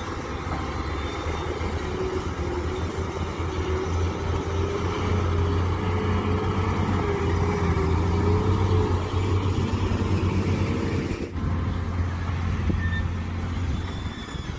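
Mini excavator running, its engine making a steady low hum with a wavering whine over it; the whine stops about eleven seconds in while the engine runs on.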